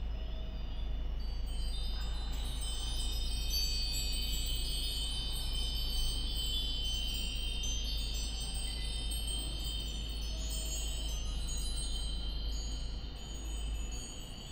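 Many cast-iron Nambu ironware wind bells (furin) ringing together in the breeze: a continuous high tinkling of overlapping notes. A steady low rumble runs underneath and drops away near the end.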